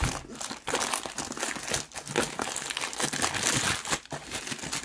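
Clear plastic packaging bag crinkling continuously as it is cut open and pulled off a folded fabric sandbag.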